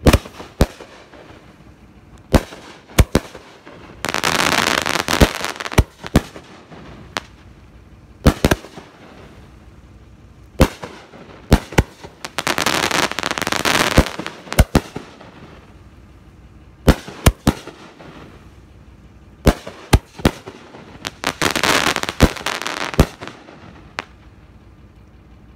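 Maddox Double Barrel 9-shot 500 g firework cake firing: a run of sharp reports, often in quick pairs, broken by three longer spells of dense crackling, a little after the start, in the middle and near the end.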